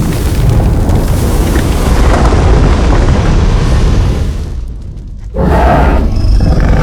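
Designed dragon sound effect: a long, loud, noisy blast with heavy bass that fades out about four to five seconds in, followed near the end by a second loud burst with a pitched edge.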